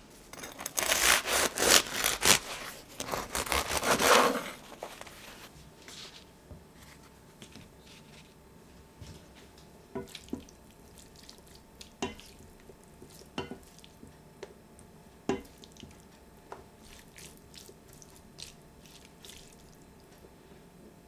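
Bread knife sawing through a crusty ciabatta roll, several crackling strokes over about four seconds. Then a silicone spatula scraping and scooping strips of braised beef and red pepper in a steel sauté pan, with a few sharp knocks against the pan.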